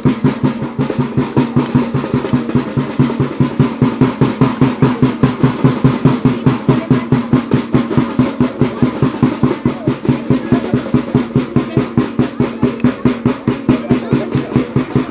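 A drum beaten live in a fast, even rhythm of about four beats a second, each beat ringing with a deep tone.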